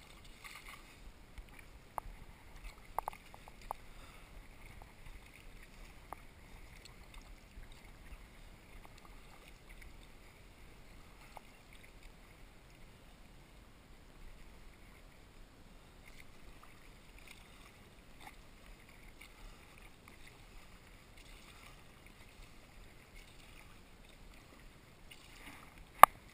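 Kayak paddling: paddle blades dipping and water splashing and dripping against a faint steady hiss. There are a few sharp clicks about two to four seconds in and one loud sharp knock near the end.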